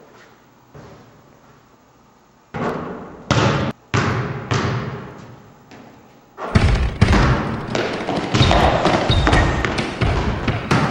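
Basketball thudding and bouncing on a hard hall floor, with echoing single impacts at first. From about six and a half seconds in, the bounces come faster and closer together.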